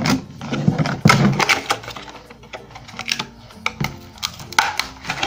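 Irregular quick clicks and taps from handling a small phone tripod stand and its plastic packaging during unboxing.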